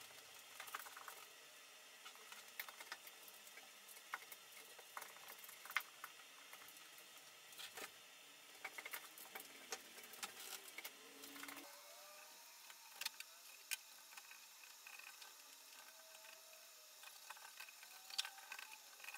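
Faint scratching and tapping of a paintbrush spreading oil-based paint over a van's bare sheet-steel floor, heard over near silence.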